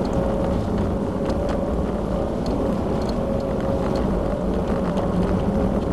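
Mitsubishi Lancer Evolution X's turbocharged 2.0-litre four-cylinder engine running at a steady pitch, held at around 3,600 rpm as the car drives through a snowy corner at about 40 km/h, heard from inside the cabin.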